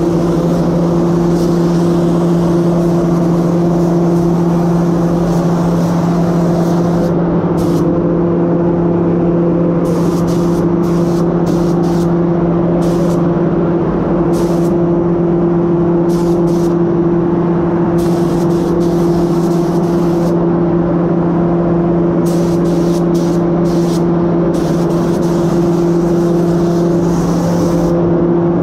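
DeVilbiss Pri Pro Lite gravity-feed spray gun hissing with compressed air as it sprays red basecoat, over a steady low hum.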